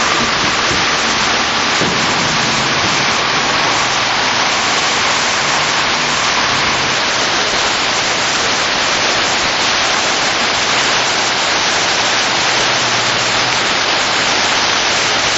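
Fast river rapids rushing in a loud, steady roar of churning water.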